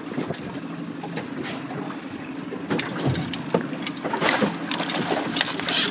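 Boat motor running steadily, with a few sharp knocks and a brief louder rush of noise near the end.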